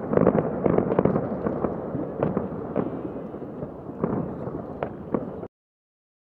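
Fireworks display: a dense stream of bangs and crackling, many overlapping shots, thinning a little towards the end and cutting off abruptly about five and a half seconds in.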